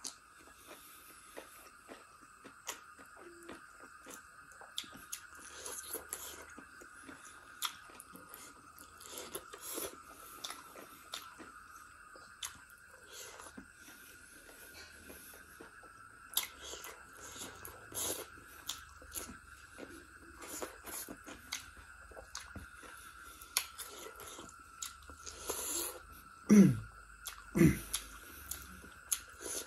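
A person chewing and biting mouthfuls of duck curry and rice eaten by hand, with many small mouth clicks. Near the end, two short low sounds that fall steeply in pitch stand out as the loudest.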